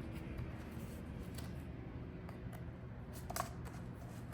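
Pages of a picture book being handled and turned: a few soft clicks and paper rustles, the clearest about three-quarters of the way through, over a low steady room hum.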